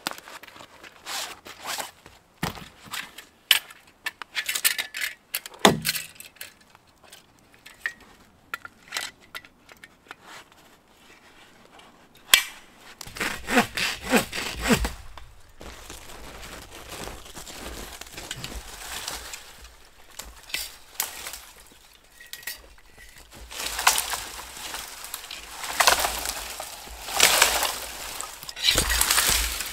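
Hand saw cutting through a small standing tree trunk in repeated back-and-forth strokes, heaviest in the last few seconds, and the cut tree toppling into the snow near the end. Before the sawing starts, scattered knocks and crunches of gear being handled in the snow.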